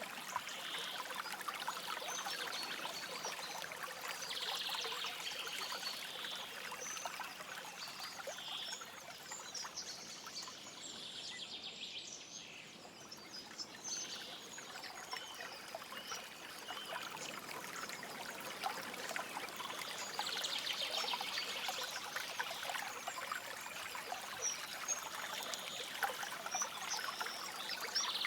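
Stream water trickling and flowing steadily, with birds giving short high calls every few seconds.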